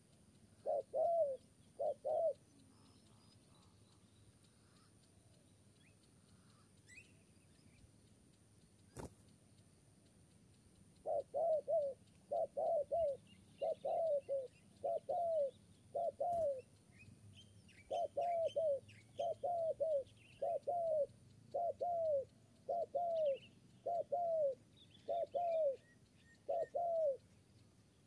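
Spotted dove cooing: short, falling, throaty coos in quick groups. Two groups come near the start, then after a pause a long, even run of them, about one group a second.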